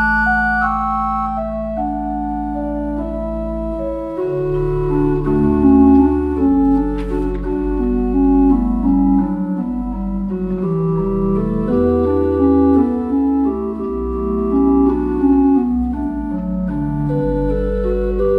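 Pipe organ playing: a held chord over a sustained low note for the first few seconds, then from about four seconds in a moving bass line under changing chords.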